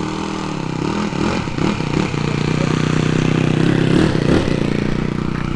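Small model-airplane engine on a radio-controlled Cessna running at high throttle, a steady buzzing note that wavers in pitch near the start and then holds while growing gradually louder.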